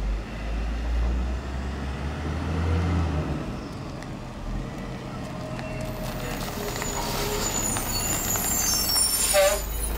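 Mack LE garbage truck's diesel engine running as it drives up close, with high brake squeals and air-brake hiss from about six seconds in as it slows to a stop.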